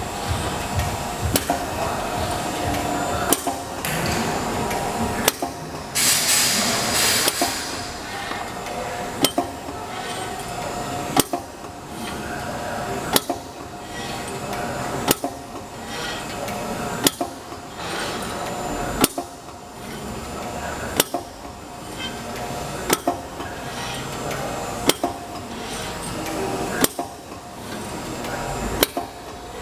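Automatic pipe hole-punching machine at work: a sharp punch stroke about every two seconds over the machine's steady hum. A burst of hissing comes about six seconds in.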